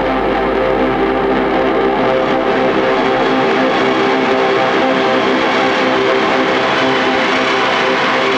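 Experimental noise-music drone: a dense, steady wash of sustained tones over hiss, with a low rumble that drops out about three seconds in.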